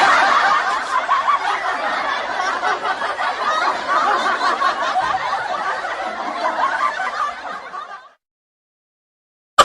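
Laughter sound effect: a steady run of laughing that fades over its last second and stops about eight seconds in.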